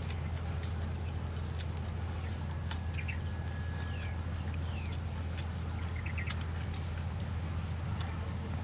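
Outdoor ambience: a steady low rumble under scattered small clicks, with brief bird chirps about three seconds in and again around six seconds in.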